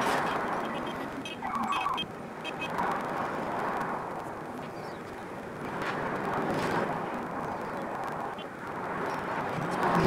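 Outdoor ambient noise, a rushing haze that swells and fades every few seconds, with a short pitched tone about a second and a half in.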